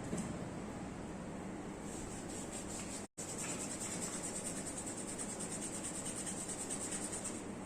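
Hands rubbing oiled skin during a massage, in quick even strokes in the second half; the sound drops out completely for an instant about three seconds in.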